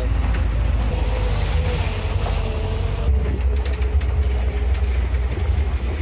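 Steady low rumble of a car driving, heard from inside the cabin, with a faint wavering hum above it.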